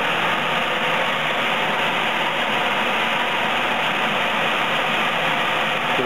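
Mobile-home furnace blower running, a steady rush of air close to the microphone: air drafting in through the open fresh-air duct into the blower compartment.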